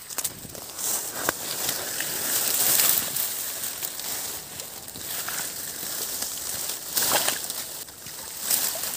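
Fern fronds and leaves rustling and brushing against the camera as it is pushed through dense undergrowth, with a few small snaps; louder about two to three seconds in and again around seven seconds.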